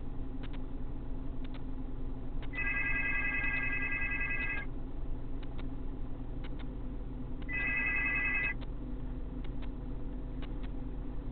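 A telephone ringing tone sounds in repeated bursts of about two seconds with pauses of about three seconds. The last ring stops after about a second. A steady low hum runs underneath.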